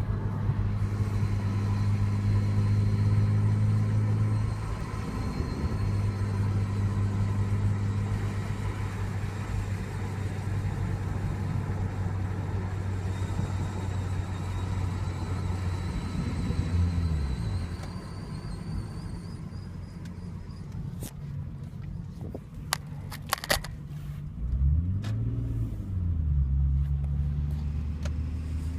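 A 2002 Lexus IS300 driving, its engine pulling through gear changes, with a faint high-pitched squeal rising in pitch through the middle of the run. The squeal is heard at 20 to 50 mph whether or not the brakes are on, with a new front passenger-side wheel bearing, rotors, pads and calipers already fitted; the owner wonders if it is a rear wheel bearing.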